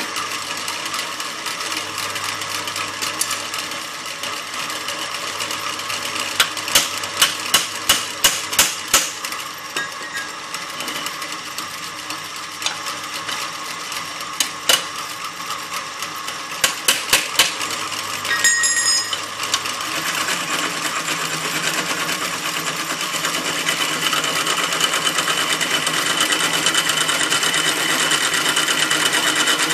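Bench drill press running, its bit fed down into a metal workpiece. There is a quick run of sharp ticks about a quarter of the way in and a few more later. The cutting grows steadily louder over the last third.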